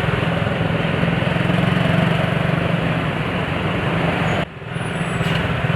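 Souped-up motorcycle engine running steadily while riding in traffic. The sound dips briefly about four and a half seconds in, then picks up again.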